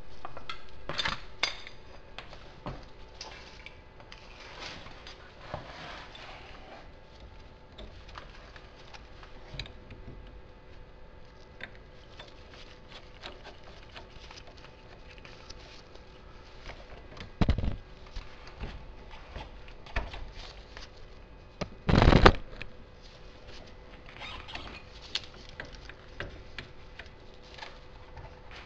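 Steel ball joint separator being handled and fitted around a car's lower ball joint: scattered metal-on-metal clinks and scrapes, with two louder knocks past the middle about four seconds apart, the second the loudest.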